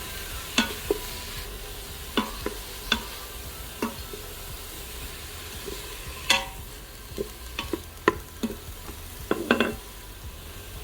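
Diced onion and celery sizzling as they sauté in an Instant Pot's stainless steel inner pot. A utensil stirs them, knocking against the pot at irregular moments, about once a second.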